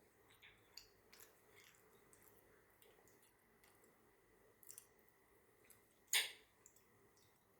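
A person eating quietly: soft chewing with scattered small clicks, and one sharper, louder click a little past six seconds in.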